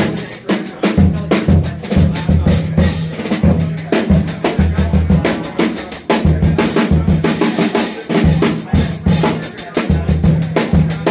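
Drum kit solo played with sticks, fast dense strokes on drums and cymbals, with electric bass guitar notes holding underneath.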